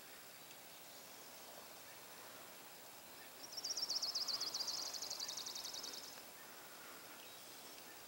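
A small songbird singing one fast, high trill of about a dozen notes a second, lasting about three seconds and starting a little after three seconds in, loudest at its start and fading toward its end, over faint steady outdoor background noise.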